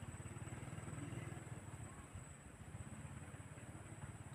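Faint, steady low rumble of a small engine running, with a constant thin high tone above it.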